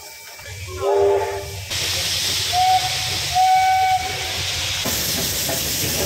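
Steam locomotive's chord whistle giving a short blast about a second in, followed by loud steady steam hissing over a low rumble as the engine comes by; the hiss grows stronger near the end. Two brief single high tones sound in the middle.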